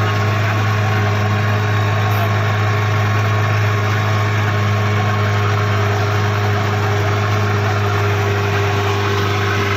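Engine of a wooden passenger boat running steadily under way: a loud, constant low drone that holds the same pitch throughout.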